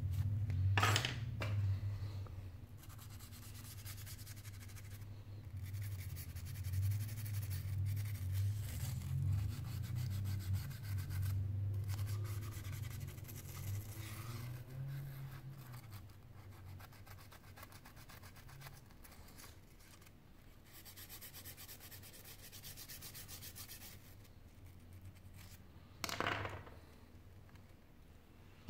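A bristle brush and a plastic tool rubbing and scraping over the bare frame of a Sony Xperia Z5 as it is cleaned of dust, with dull handling noise. There are two sharper scrapes, one about a second in and one near the end.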